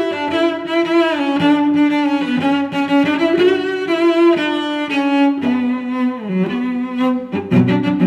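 Background music: a slow bowed-string melody with gliding, held notes. A lower part joins near the end.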